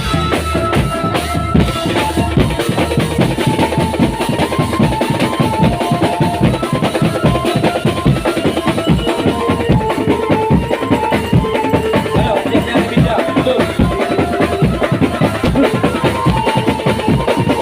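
Drum band music: dense, fast drumming with bass drum and snare, and a melody carried over it.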